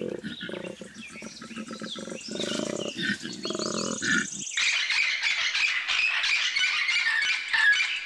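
Koala bellowing: a rapid train of low, pulsing grunts lasting about four and a half seconds. It then stops, and a dense high-pitched chatter fills the rest.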